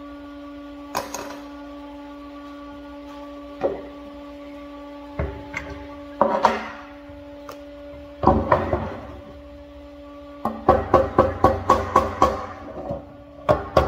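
Scattered single clanks of steel tools and the part being handled on a steel welding table, then from about ten and a half seconds a quick run of sharp metal taps, about four a second, as slag is chipped off a fresh stick weld with a chipping hammer. A steady hum runs underneath.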